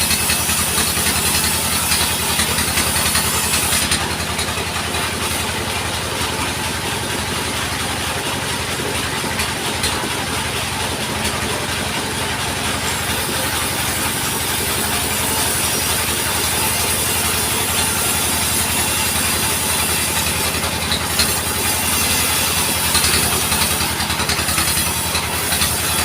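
Band sawmill's engine running steadily, with a high hiss over it that drops away about four seconds in and comes back near the end.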